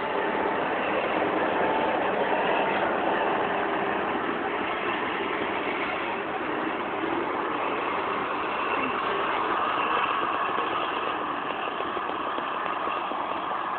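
Farm machinery engines running steadily during the maize harvest, a continuous dense mechanical noise.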